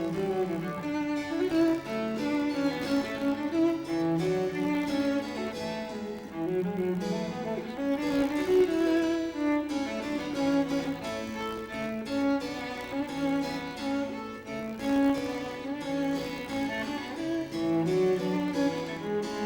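Background music of bowed strings, cello and violin, playing a slow melody.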